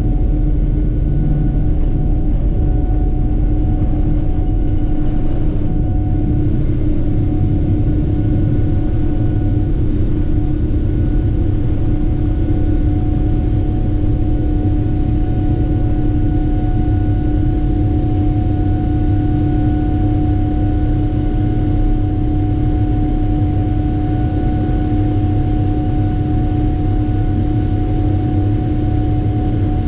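Boeing 777-300ER's GE90-115B turbofan engines at high thrust as the jet lifts off and climbs, heard inside the cabin beside the wing: a steady deep rumble with a hum of several held tones.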